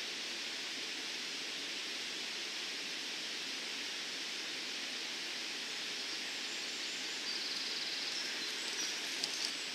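Steady outdoor background hiss. Near the end, a faint rapid ticking and then two sharp clicks come from a road racing bicycle passing close by.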